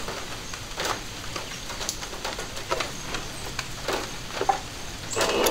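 Scattered light clicks and handling noise as fabric is settled under the presser foot of a Singer Patchwork 7285Q sewing machine. Near the end the machine starts stitching with a steady, even whir.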